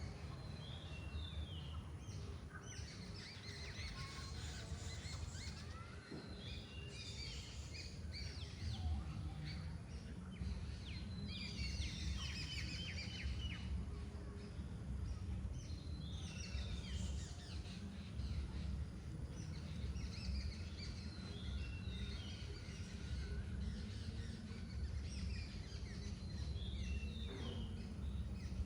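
Small birds chirping and trilling in a tree, many short calls overlapping throughout, over a steady low rumble.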